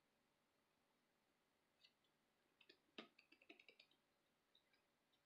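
Near silence, broken about halfway through by a short run of faint clicks and crinkles from a cardboard-backed plastic blister pack being handled.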